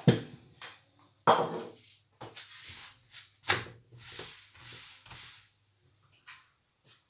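Knocks and clatter of a frying pan on the hob, and a paratha being moved and turned by hand in the pan, with a short scraping rustle.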